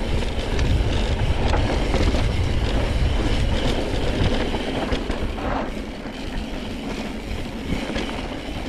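Mountain bike riding down dirt singletrack: tyres rolling over dirt and rock, and the bike rattling over the bumps, with wind rumbling on the microphone. The noise eases a little about six seconds in.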